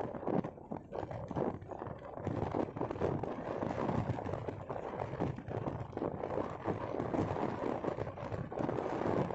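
Road and wind noise from a vehicle driving along an asphalt highway: a continuous low rumble with an uneven, rapid fluttering, as if wind were buffeting the microphone.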